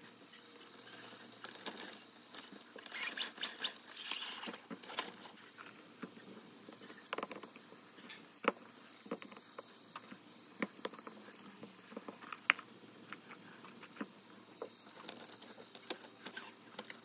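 Hands working on an RC rock crawler's wheels and small parts. There is a burst of scraping and rustling about three seconds in, then scattered sharp clicks and taps, the loudest two about eight and twelve seconds in.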